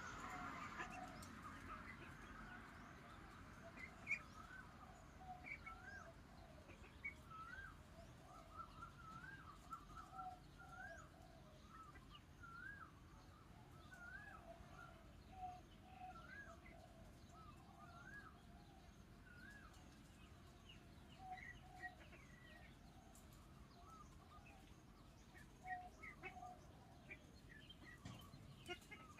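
Ducklings peeping faintly: a string of short rising-and-falling peeps, about one a second, with quieter, lower calls beneath.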